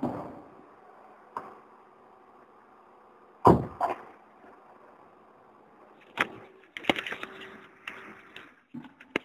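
Vauxhall Vectra engine dropping back to a quiet, steady idle after a rev. Several sharp knocks and clatters sound over it, a pair about three and a half seconds in and a cluster near the end.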